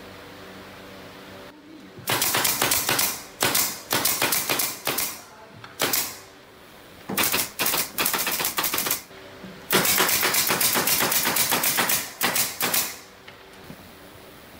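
Pneumatic nail gun firing rapid strings of shots into a plywood subwoofer cabinet's top panel, several nails a second, in about eight bursts with short pauses between them.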